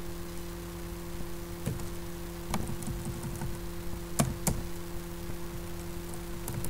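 Computer keyboard keys tapped sparsely, a few separate keystrokes with two louder clicks about four seconds in, over a steady low hum.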